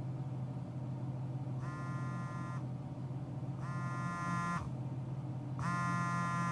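Smartphone vibrating with an incoming call: three buzzes, each about a second long and a second apart, over a low steady hum in the car cabin.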